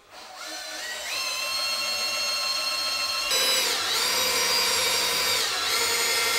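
Cordless drill boring a 5 mm hole through a metal motorcycle bash plate: the motor whine spins up and rises in pitch, runs steady, then gets louder. About four seconds in the pitch sags as the bit loads up in the metal, recovers, and the drill stops abruptly at the end.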